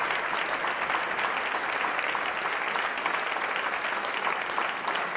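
Concert audience applauding: many people clapping steadily together.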